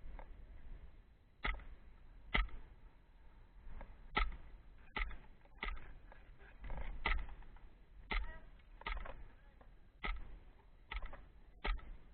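Pistol firing shot after shot, about a dozen short, sharp cracks at uneven intervals of roughly a second.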